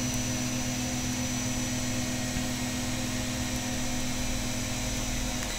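Steady machine hum with a faint high-pitched whine.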